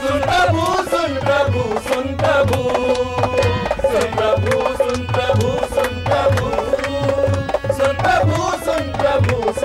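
Folk music on dholak and harmonium: the dholak beats a steady, quick rhythm under a wavering harmonium melody.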